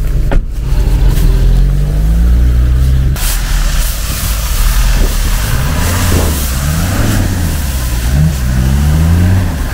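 Off-road 4x4 engine revving, its pitch rising and falling several times.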